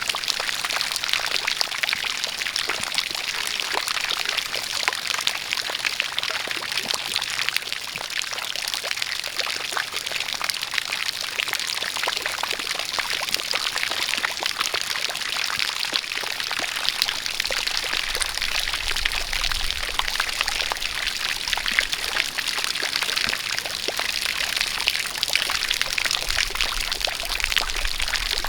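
A spout of water pouring steadily, mixed with the patter of rain drops, a dense even splashing without pause. A faint low rumble joins in past the middle.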